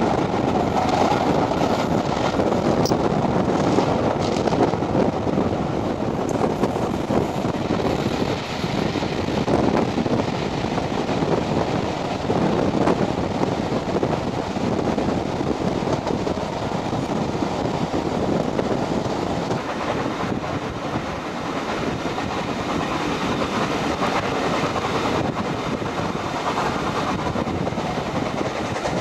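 Steam-hauled passenger train running along the line behind LNER A4 Pacific 60009 Union of South Africa, heard from aboard at an open carriage window: a steady rumble of coach wheels on the rails with rushing air.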